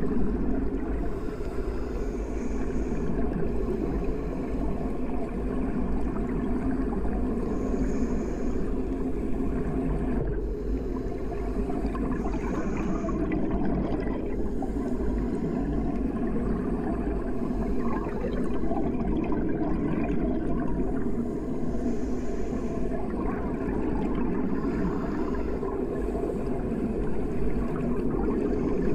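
Steady, muffled low rumble of water heard through an underwater microphone.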